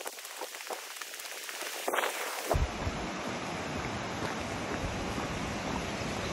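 Footsteps crunching on a gravel road, with a steady noise behind them. About two and a half seconds in, the sound changes abruptly to a fuller, steadier noise.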